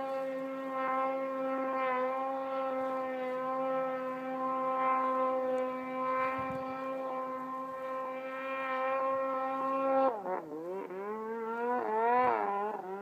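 Snowmobile engine running at high, steady revs with an even engine note; about ten seconds in the pitch drops, then rises and falls several times as the throttle is eased off and opened again.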